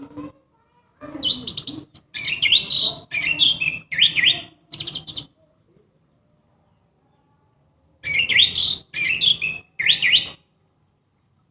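Orange-headed thrush singing loud, clear, varied phrases. Five quick phrases come in a run, then about three seconds of pause, then three more.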